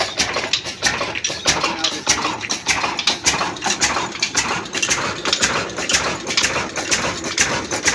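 26 hp stationary diesel engine with a large flywheel running steadily, a rapid, even metallic clatter of several knocks a second.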